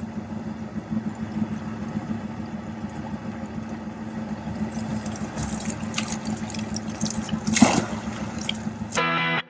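Fish-stocking truck unloading trout into the lake: water rushing and splashing over a steady motor hum, with a louder splash a little before the end. Music starts in the last half second.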